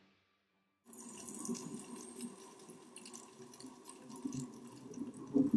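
Underwater water sound, bubbling and crackling, starting about a second in after a brief silence and getting louder near the end.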